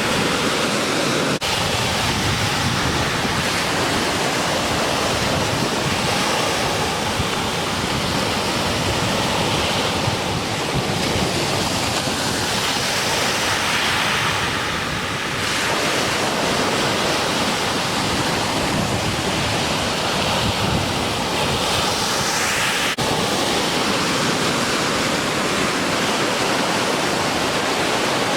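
Ocean surf breaking continuously at a river mouth, swell left by a passing typhoon, with wind buffeting the microphone.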